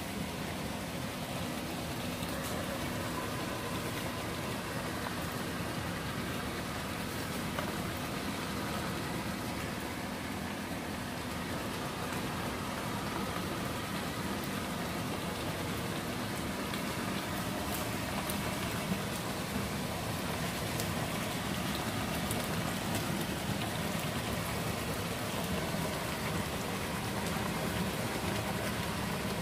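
Tomato stew sizzling and bubbling in a pan on the hob: a steady crackling hiss.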